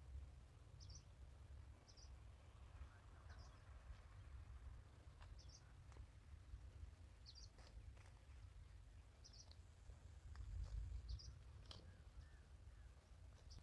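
Near-silent field ambience: a bird's short, high chirps repeating about once a second over a faint low rumble.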